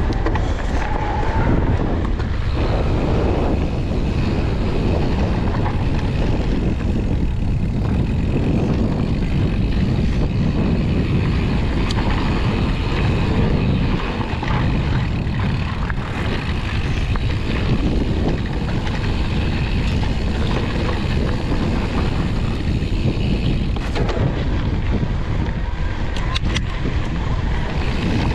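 Mountain bike riding a dirt trail at speed: a steady rush of wind on the microphone mixed with tyre rumble, with a few sharp clicks around the middle and toward the end.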